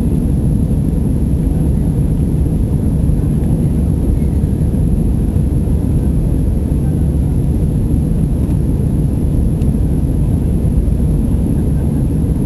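Airbus A320 cabin noise in the climb after takeoff: the steady low drone of the jet engines and rushing air, heard from a window seat inside the cabin.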